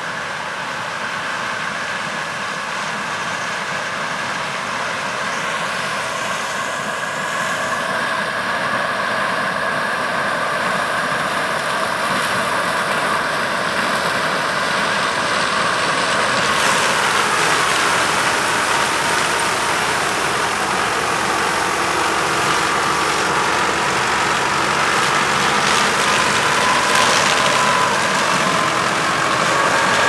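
A combine harvester and a tractor running side by side while harvesting and unloading corn: a steady mix of engine and threshing-machinery noise that grows gradually louder as they approach.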